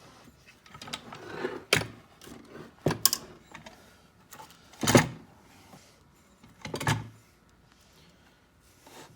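Metal parts and tools being handled during a key machine motor swap: about five sharp knocks and clatters with scraping between them, the loudest about halfway through.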